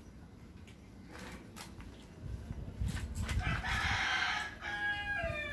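A rooster crows once, starting about three and a half seconds in. The crow opens rough and harsh and ends in a drawn-out note that falls in pitch.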